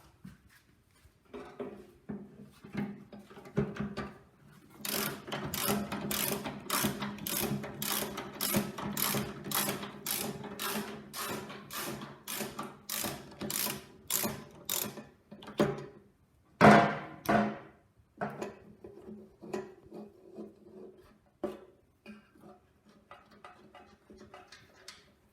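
Ratchet spanner being worked back and forth to undo a tight bolt, a quick run of clicking strokes about two or three a second, then a few louder single strokes and slower, scattered ones.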